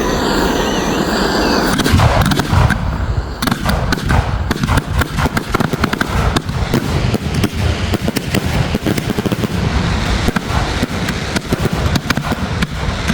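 Fireworks display going off: after a steady rushing noise, a dense run of rapid bangs and crackles starts about two seconds in and keeps going.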